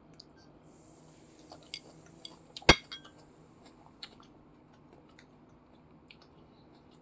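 Ceramic dishes being handled and set down, a few light clinks and knocks with one much louder sharp knock about two and a half seconds in. Behind them is a faint high hiss from a high-pressure water spray, which stops about four seconds in.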